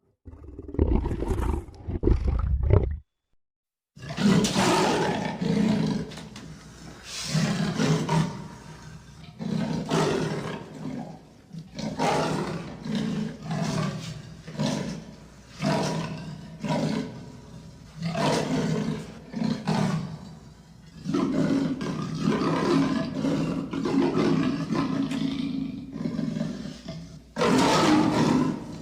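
Big-cat monster growl sound effect, deep and lion-like: a rumbling growl, a brief silence, then a long run of throaty growls pulsing about once a second over a low rumble, with a louder growl near the end.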